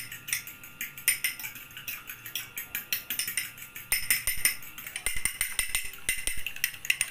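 A spoon beating an egg in a small glass bowl, clinking rapidly and rhythmically against the glass.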